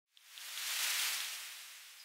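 Logo-intro whoosh sound effect: a hissing swell that builds to a peak about a second in and then slowly fades.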